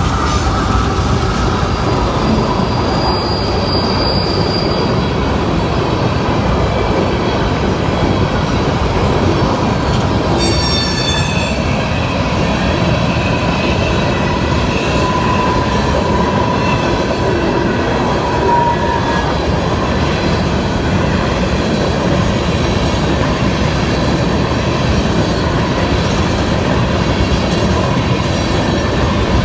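Empty coal hopper cars of a CSX unit train rolling past at speed: a loud, steady rumble and rattle of wheels on rail, with high wheel squeal coming in from about ten seconds in.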